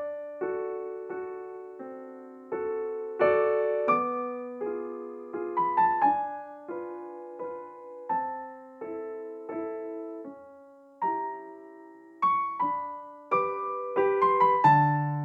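Gentle background piano music: a slow melody of single struck notes and chords, each ringing and fading.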